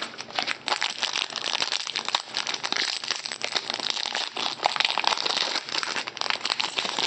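Foil trading card pack wrapper crinkling and crackling continuously as it is torn open and the cards are pulled out of it.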